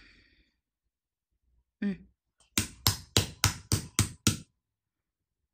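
Small toy hammer beating rapidly on a plastic surprise egg: seven quick, sharp blows about a quarter-second apart.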